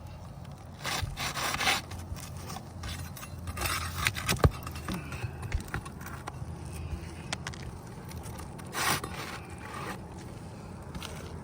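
Intermittent scraping and rubbing on an asphalt shingle roof as brittle shingles are handled, in several short bouts, with one sharp click about four and a half seconds in.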